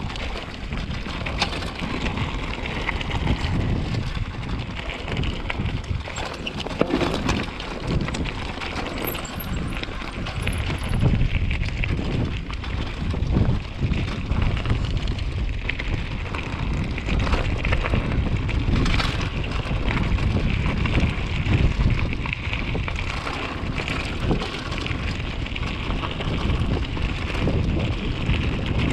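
Wind buffeting a helmet- or bike-mounted action camera's microphone, over the rumble, crunch and rattle of a mountain bike rolling down a rough dirt trail.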